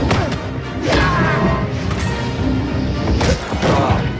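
Background music mixed with lightsaber sound-font effects: sweeping swing sounds and loud clash hits, with two big impacts about two and a half seconds apart.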